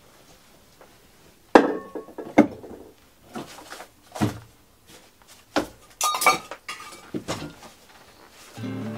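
A series of sharp knocks and metallic clinks, some ringing briefly, of hard objects being handled and set down. Acoustic guitar music comes in near the end.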